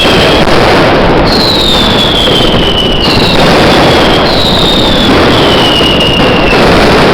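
A dense, continuous barrage of fireworks and firecrackers crackling and banging without pause, very loud. Whistling fireworks keep sounding over it, about one a second, each whistle sliding slightly down in pitch.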